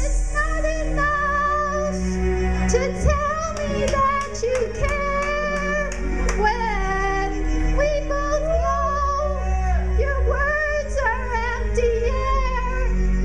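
A song: a woman's singing voice over an electronic backing track with a steady deep bass.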